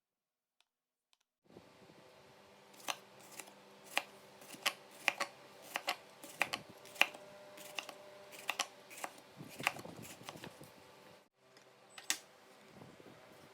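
Knife cutting bitter melon on a cutting board: irregular sharp taps and clicks, one or two a second, over a steady low hum, starting about a second and a half in and thinning out near the end.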